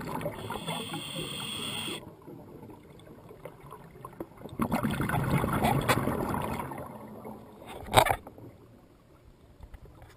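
Muffled underwater noise picked up by a diving camera's microphone: water rushing and gurgling in uneven swells, with a faint high whine over the first two seconds and one sharp knock about eight seconds in.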